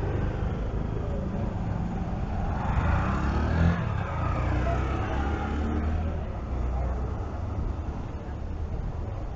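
Road traffic rumbling steadily, with a vehicle passing and swelling to its loudest about three to four seconds in.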